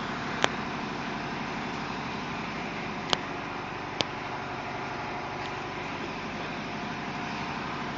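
Air compressor running steadily, with three short sharp clicks about half a second, three seconds and four seconds in.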